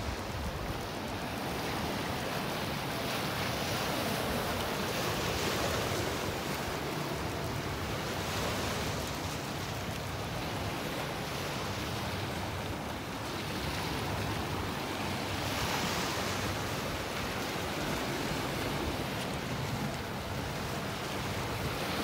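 Lake Superior waves washing and splashing against the foot of a rocky cliff, a steady rush that swells and eases every few seconds.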